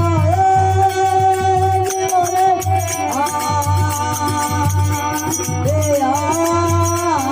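Rajasthani folk bhajan music: a long held melody line that bends in pitch every few seconds, over repeating low drum beats.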